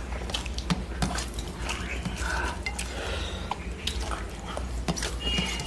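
Eating by hand from stainless steel plates: fingers mixing and scooping rice against the metal, with scattered light clicks and scrapes and some chewing.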